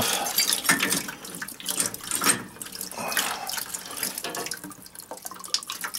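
Water running in a thin stream from the boiler's drained piping into a plastic bucket, with a few sharp metal knocks from a pipe wrench working the union of the feed valve.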